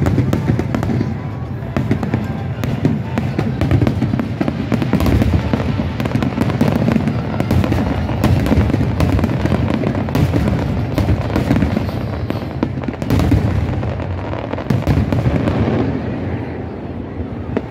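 A fireworks display going off: a dense, continuous run of booming shell bursts with rapid crackling between them.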